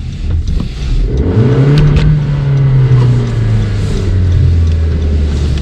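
Front-wheel-drive car's engine revved hard to break free of deep snow: the pitch climbs about a second in, then settles lower and holds steady as the car is put into gear under power.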